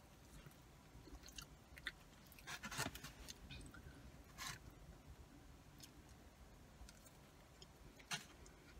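Faint chewing of cheesy curly fries, with soft mouth sounds and a few scattered short clicks. The loudest cluster comes about two and a half seconds in.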